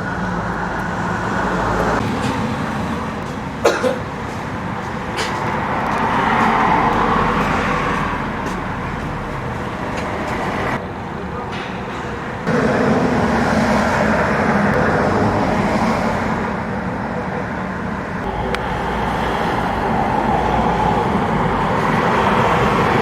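Road traffic on a street, cars swelling past one after another over a steady background rumble, with a sharp knock about four seconds in.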